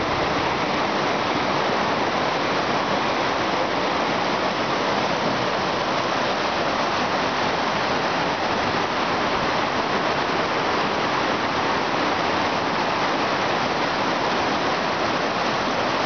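Loud, steady rush of fast-flowing mountain water: a rocky stream fed by a tall waterfall.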